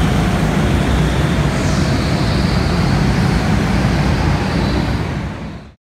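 Go-kart engines running as karts lap an indoor track, a steady loud rumble inside a large hall. The sound cuts off suddenly near the end.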